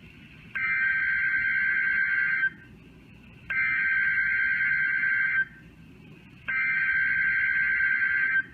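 Emergency Alert System SAME header data bursts sent three times, each a harsh buzzing warble about two seconds long with about a second of pause between them. They are the digital code that opens an emergency alert, here a child abduction emergency (Amber Alert).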